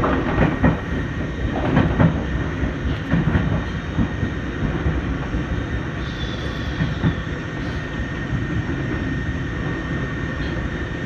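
Electric commuter train running, heard from inside the passenger car: a steady low rumble with a thin constant whine, and a few sharp wheel clicks in the first couple of seconds.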